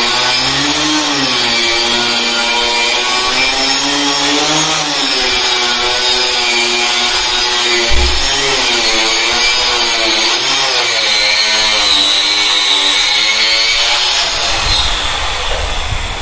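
Handheld electric cutter machine sawing through plywood, its motor whine wavering in pitch as the blade bogs and recovers in the cut, with one brief thump about halfway. Near the end the cut finishes and the motor winds down.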